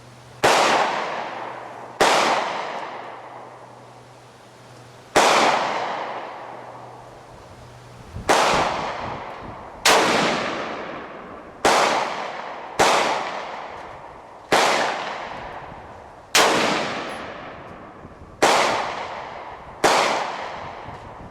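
Gunshots fired one at a time, about eleven in all, every one to three seconds, each a sharp crack with a long echoing decay.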